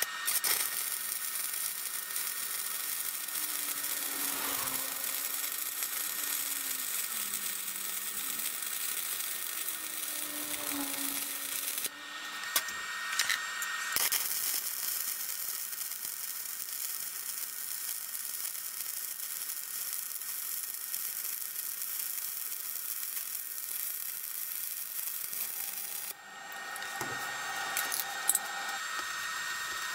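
Electric arc welding on steel bar: a steady crackling sizzle from the arc. It breaks off about twelve seconds in, strikes again two seconds later, and stops a few seconds before the end, after which a few sharp clicks follow.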